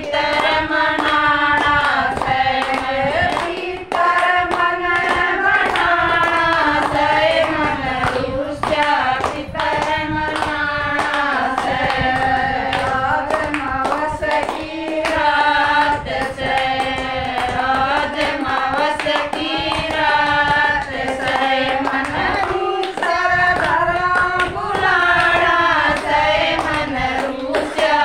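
A group of women singing a pitar bhajan, a devotional song to the ancestors, in unison without instruments, clapping their hands to keep the beat.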